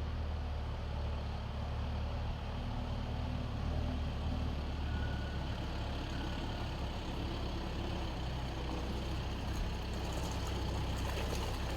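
Diesel tractor engine running steadily with a deep, even drone.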